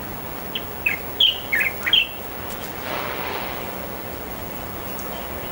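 A bird chirping: a quick series of about six short, high chirps in the first two seconds, over a steady background hiss.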